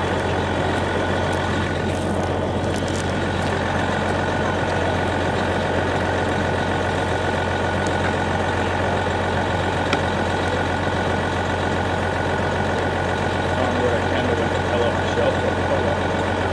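Fire engine running steadily at idle, with people talking faintly underneath.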